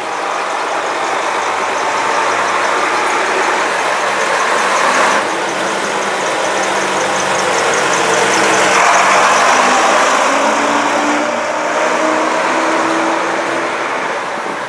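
Diesel engine of a vintage Routemaster double-decker bus running as the bus drives past, loudest as it goes by about two-thirds of the way through. The engine note rises a little as it pulls away near the end.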